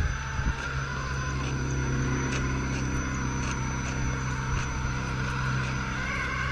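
Losi Rock Rey RC rock racer's electric motor and gears whining steadily as it carries a child's weight at low speed, with a sharp knock at the very start and a lighter one half a second later.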